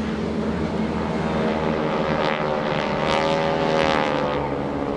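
A formation of North American SNJ Texan trainers passing overhead, their Pratt & Whitney R-1340 radial engines and propellers droning. The sound swells to its loudest three to four seconds in, with the pitch dropping as they pass.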